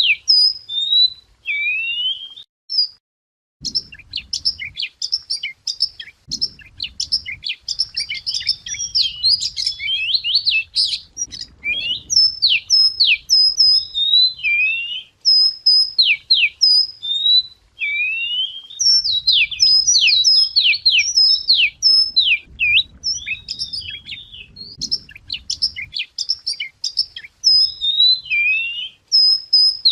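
Wagtail singing a long, varied song of quick whistled slurs and chirps, with a brief pause near the start.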